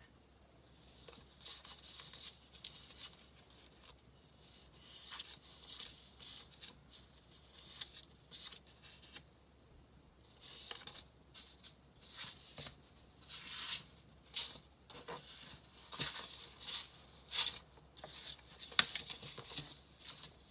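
Paper sticker sheets being handled: irregular soft rustling and scratching, with a sharp click near the end.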